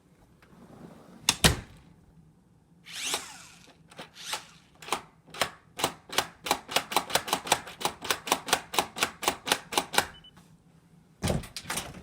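UltraLoq U-Bolt smart deadbolt being turned by hand: a long run of sharp mechanical clicks, about four a second, from the lock's turning mechanism. A loud knock comes a little over a second in, and two thumps near the end.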